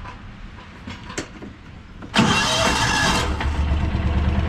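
A few light clicks, then about two seconds in a Mule utility vehicle's engine is cranked and catches with a loud burst, settling into a steady, evenly pulsing idle.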